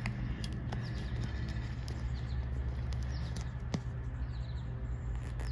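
Light clicks and rustles of a paper sticker sheet being handled, over a steady low hum, with a few faint high chirps.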